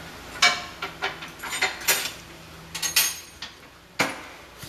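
A run of irregular sharp metallic clanks and knocks from tools and steel suspension parts being worked on under a car, the loudest about half a second in and another sharp knock near the end.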